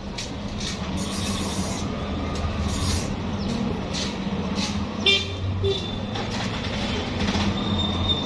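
Street traffic: a motor vehicle running with a steady low hum, and a short horn toot about five seconds in.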